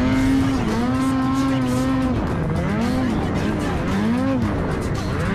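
Snowmobile engine revving hard through deep powder, holding high for about two seconds, then dropping and climbing in pitch several times as the throttle is worked.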